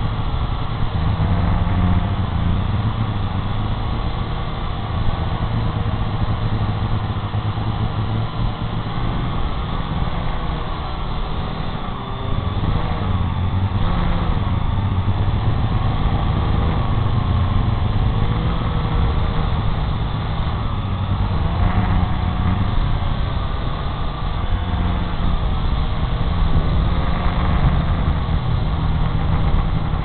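Syma X8 quadcopter's motors and propellers heard through its onboard camera, a steady buzzing hum whose pitch keeps wavering up and down as the drone holds and turns in the air, over a low rumble of rotor wash and wind.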